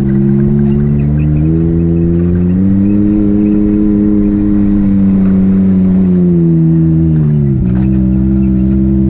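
Can-Am Maverick X3 Turbo's turbocharged three-cylinder engine running under light throttle at low speed, heard from inside the cockpit. The revs step up twice in the first few seconds, hold, then ease off and dip briefly near the end.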